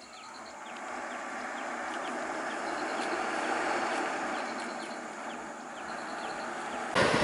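Diesel bus driving toward the camera, engine and tyre noise swelling as it comes closer, easing, then rising again, with a sudden louder rush near the end. It belches black exhaust smoke as it pulls away.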